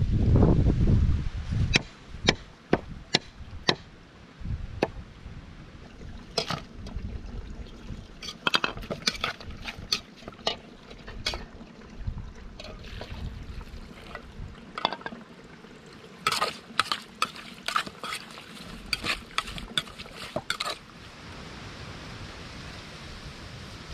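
A knife chopping chillies and long beans on a wooden board in sharp, regular cuts about two a second, then a metal spoon clinking and scraping against an aluminium pot as vegetables and meat are stirred together. A low rumble is heard at the start, and an even hiss near the end.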